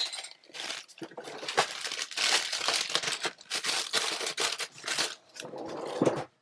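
Plastic bag of frozen shrimp crinkling and rustling as it is handled, with irregular crackles throughout.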